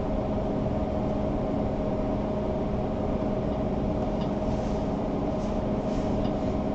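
Steady machine hum of a running desktop computer's fans, with a steady tone through it and a few faint clicks in the second half.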